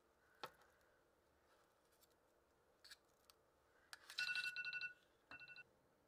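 A few light clicks and taps of kitchen utensils, then an electronic beeper sounding a rapid trill of beeps about four seconds in and a shorter one a moment later.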